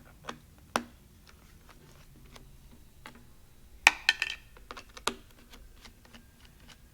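Scattered light clicks and taps of small screws being undone from a laptop's bottom panel with a screwdriver and set down, with a sharper cluster of clicks about four seconds in.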